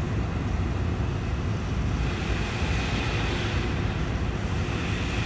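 Steady low rumble of city background noise, with a faint higher hiss that comes up about two seconds in.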